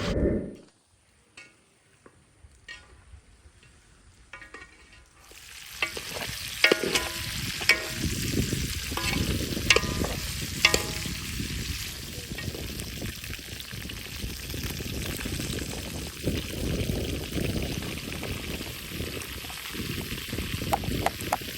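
Rougail saucisses frying in a pot over a wood fire: a steady sizzle starts about five seconds in, after a nearly quiet stretch with a few faint clicks. A utensil knocks and rings against the pot several times as the food is stirred.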